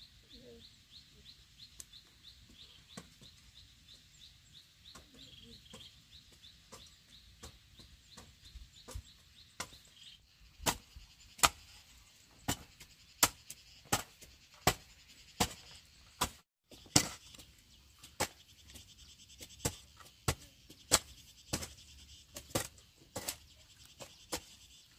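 Hand hoes chopping into hard, dry, clumpy soil, sharp knocks about once a second that start about ten seconds in. Before that, only a faint high chirp repeating several times a second.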